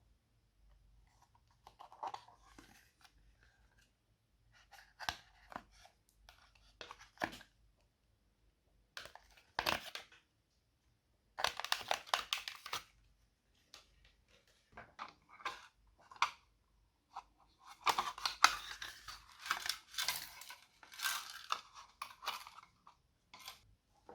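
Glossy slime being squeezed and stretched by hand: sticky crackling and popping in irregular bursts with short quiet gaps, busiest near the end.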